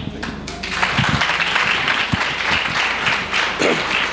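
Congregation applauding: many hands clapping together, swelling about a second in and then keeping up steadily.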